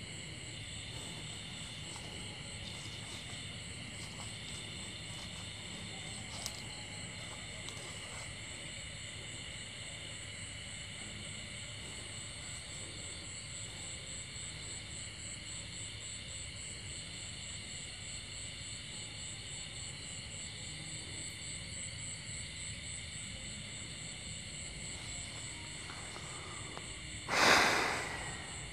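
A steady chorus of night insects: several high trills held without a break, the highest pulsing rapidly. About a second before the end, a sudden loud noise swells and fades away within about a second.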